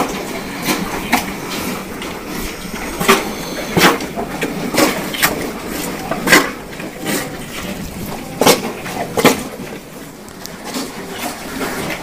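Murrah buffaloes feeding at round concrete troughs: about ten irregular sharp knocks and clatters over a rustling background.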